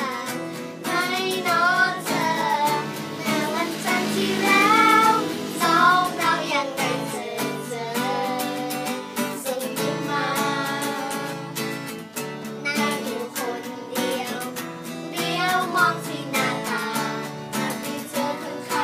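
Young girls singing a song together to a strummed acoustic guitar.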